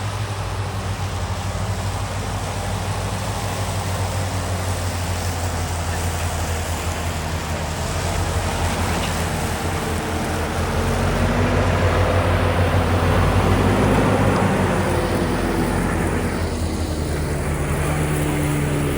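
An engine runs steadily with a low hum. It grows louder from about ten seconds in, then cuts off suddenly at the end.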